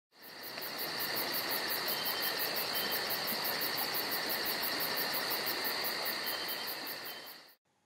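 Outdoor ambience of insects chirping: a steady high trill under a fast pulsing chirp of about five pulses a second. It fades in at the start and fades out shortly before the end.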